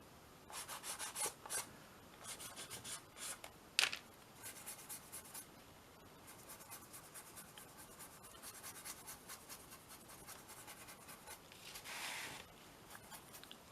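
A colour stick rubbed across a paper collage on canvas in short scratchy strokes, with finer quicker strokes later. There is a single sharp tap about four seconds in and a softer swish near the end.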